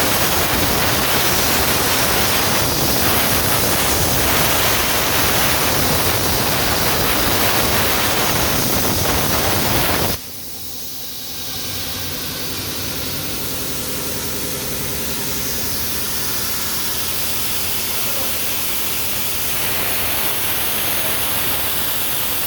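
CEA 75 plasma cutter on a CNC gantry cutting: a loud, steady hiss that cuts off suddenly about ten seconds in, leaving a quieter steady hiss.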